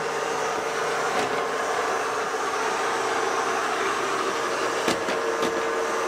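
Taurus Striker Mini robot vacuum running steadily, its motor and brushes giving a constant whirr with a steady mid-pitched hum, and a couple of light knocks about five seconds in.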